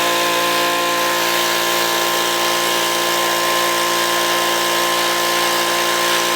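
A power tool running steadily at constant speed, cutting off abruptly at the end.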